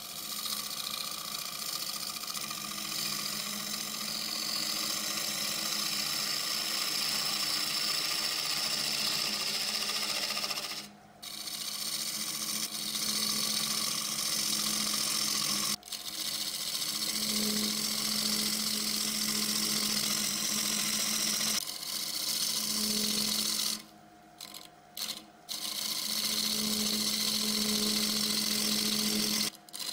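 A bent hollowing tool cutting the inside of a spinning willow bowl on a wood lathe, a steady scraping hiss of wood being removed. The cut stops briefly about a third of the way in, again about halfway, twice in quick succession past the three-quarter mark, and once more just before the end.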